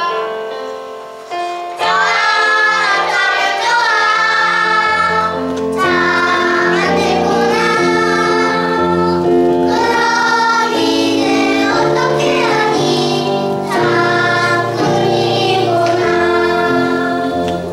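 A child singing a song from a children's musical play, with instrumental accompaniment. The voice comes in about two seconds in after a short lull.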